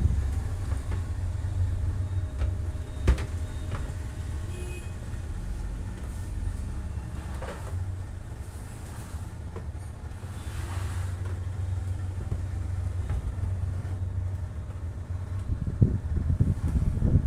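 Steady low rumble with a few sharp clicks or knocks, the clearest about three seconds in and several more near the end.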